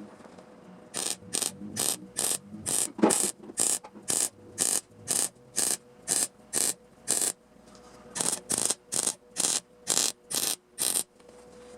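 Rhythmic scraping strokes of a hand tool worked back and forth, about two a second: a long run, a pause of about a second, then a shorter run.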